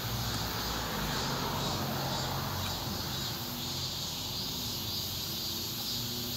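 Rear-loader garbage truck running with a steady low hum, under a steady high hiss.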